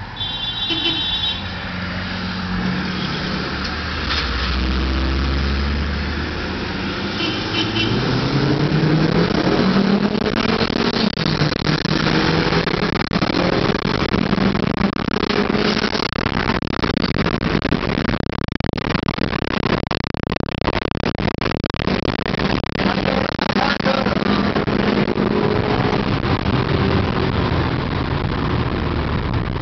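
Honda Accord engine heard from inside the cabin, accelerating hard through the gears: its pitch climbs, drops at each shift, then climbs again, over loud wind and road noise.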